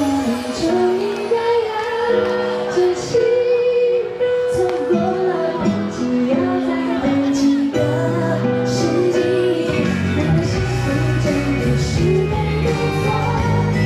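Live pop music: a woman sings a slow melody over a band. The bass and drums fill out about eight seconds in.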